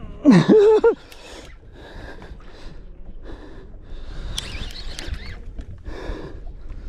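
A short, loud vocal exclamation rising sharply in pitch near the start, then steady low wind noise with scattered small rustles and knocks.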